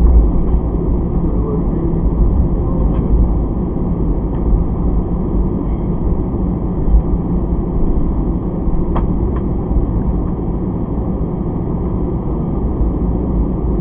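Steady low rumble and hum inside the passenger cabin of an Airbus A320 taxiing, its engines running at low power as it rolls, with a few faint ticks.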